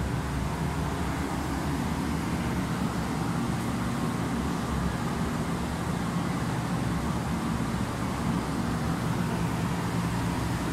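Steady low mechanical hum with an even hiss over it: aquarium filtration and air pumps running.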